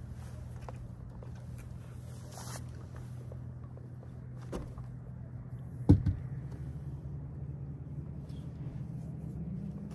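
Boat motor running steadily with a low hum, rising in pitch near the end, and a single sharp knock on the boat about six seconds in.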